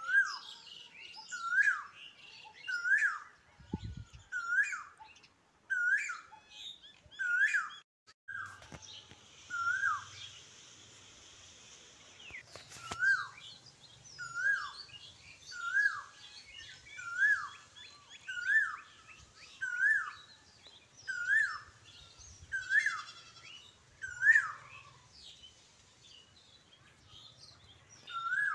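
A bird chirping over and over: the same short call, rising then falling, about every second and a half, with fainter twittering above it.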